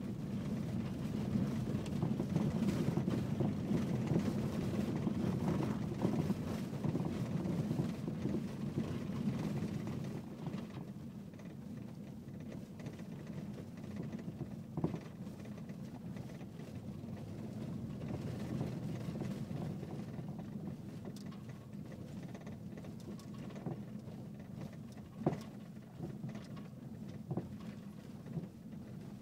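A BMW E46 3 Series Touring on the move: a steady low road rumble, louder for about the first third, with scattered rattles and knocks from the rear and two sharper knocks, about halfway and near the end. The rear knocking is of unknown cause; the strut top mounts are new, so they are not taken for the source.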